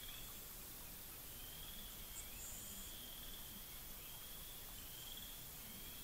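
Faint, thin high-pitched trills repeating about once a second, with a brief higher whistle about two seconds in, over quiet outdoor ambience.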